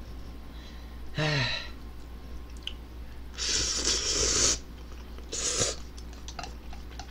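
A person slurping instant ramen noodles off a ladle, with two loud slurps: a long one about three and a half seconds in and a shorter one about two seconds later. Light chewing clicks follow, and a short low hum of the voice comes about a second in.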